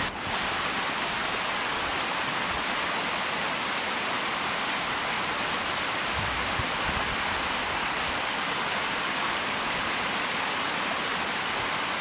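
Small woodland stream running over rocks and a low cascade, a steady rush of water.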